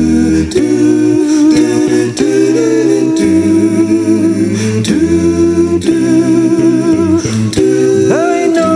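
Male a cappella vocal group singing wordless harmony: held chords over a bass voice, changing every second or so. Near the end a lead voice slides up into a high held note with vibrato.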